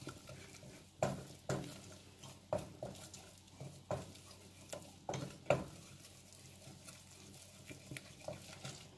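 Wooden spatula stirring and scraping a flour-and-butter roux around a stainless steel saucepan, with irregular knocks against the pan; the strokes thin out after about six seconds. The roux is being cooked on low heat as the base of a béchamel sauce.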